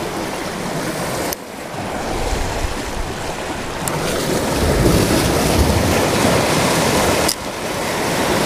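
Ocean surf washing and breaking over lava rocks, mixed with wind buffeting the microphone. The noise drops off suddenly about a second and a half in and again near the end.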